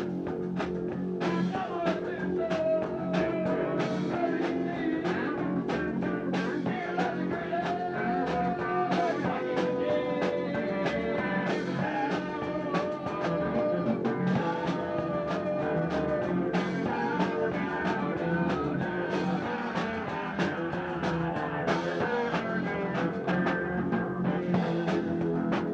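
A no-wave rock band playing live, with guitar and a drum kit keeping a steady beat, and a wavering melodic line over the top.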